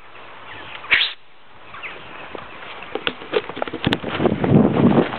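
A short, sharp hiss about a second in, then scattered clicks, and from about four seconds loud rough rustling and thudding as a handheld camera is jostled by someone moving hurriedly through grass with cattle close by.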